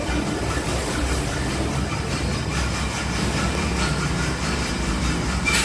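Steady low rumble of a running engine, with a sharp knock near the end.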